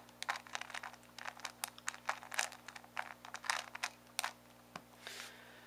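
Megaminx layers turned quickly by hand as a last-layer (PLL) algorithm is run: a rapid, uneven run of plastic clicks and clacks that stops about four seconds in. A brief soft rustle follows near the end.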